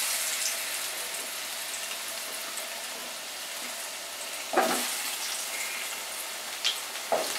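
Cubed potatoes sizzling as they deep-fry in hot mustard oil: a steady hiss, swelling suddenly and louder about four and a half seconds in and again near the end as more potato pieces are dropped into the oil.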